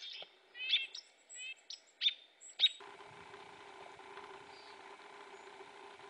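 Golden-crowned kinglet calls: a quick run of high, thin, sharp call notes, a few of them loud, over the first three seconds. Then the sound cuts to a steady low hum with only a few faint bird notes.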